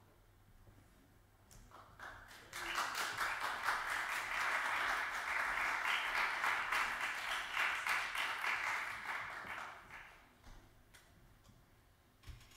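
Audience applauding, starting about two seconds in and dying away around ten seconds, then a few faint clicks.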